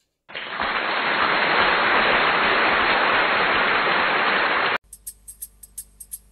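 Steady rain-like hiss that starts suddenly and cuts off abruptly after about four and a half seconds, then a few faint clicking ticks.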